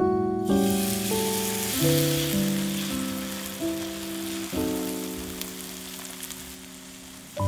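Zucchini and dill batter sizzling as it is ladled into hot oil in a frying pan, the sizzle starting about half a second in. Soft piano music plays over it.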